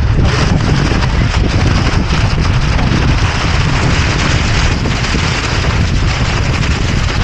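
Steady, loud wind buffeting the microphone of a camera riding on the deck of a radio-controlled sailboat, with choppy water washing against the hull.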